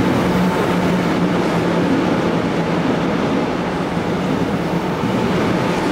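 Korail Seoul Subway Line 1 electric train running past the platform at speed: a steady rumble of wheels on rail with a constant low hum.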